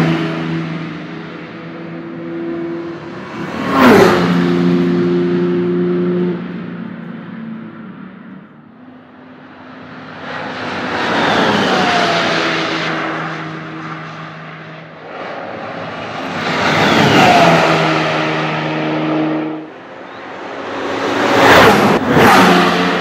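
Audi R18 e-tron quattro Le Mans prototype, a V6 turbodiesel hybrid, driving past on a race track four or five times. Each pass swells up and drops away with a falling, jet-like whine.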